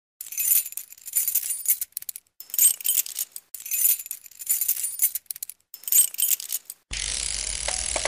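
Bright metallic jingling, like shaken bells or chimes, in four swells of about a second each. Near the end it gives way to a steadier, fuller sound with a few faint tones in it.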